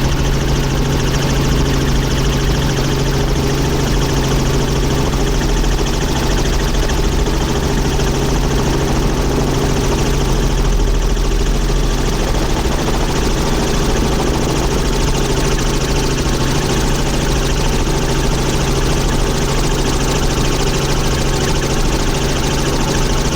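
Helicopter in flight, heard from inside the cabin: a steady, unchanging drone of engine and rotor, with a strong hum and a low rumble beneath.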